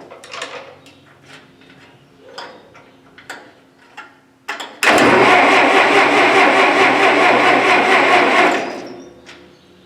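Massey Ferguson 65's gasoline engine being cranked over by its starter for about four seconds without firing, then winding down: it has no spark. A few faint clicks come before it.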